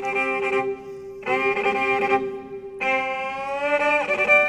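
Semi-acoustic violin playing slow, long-held bowed notes, a new note coming in about every second and a half, with a change to a wavering note near the end.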